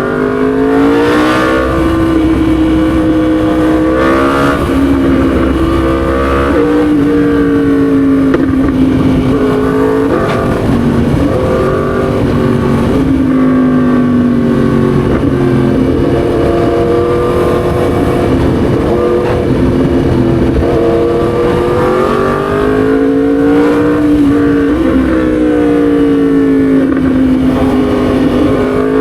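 Yamaha MT-10 SP's crossplane inline-four engine running under way, revs rising and falling, with several sudden drops in pitch.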